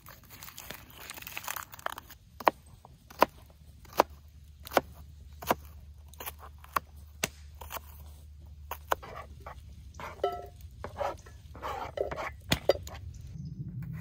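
Knife chopping an unpeeled onion on a cutting board: sharp, even strokes about one every three quarters of a second, becoming more irregular with handling knocks and rustles near the end.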